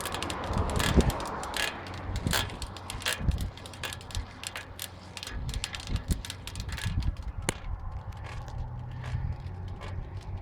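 Bicycle wheel ticking and creaking with irregular clicks as it turns, over a low rumble. The owner suspects the hub or its bearings.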